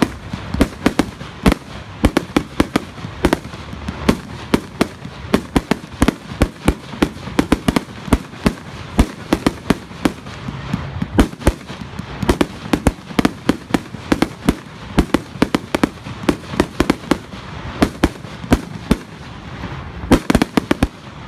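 Professional fireworks cake firing a long rapid string of sharp reports, several a second, without a break.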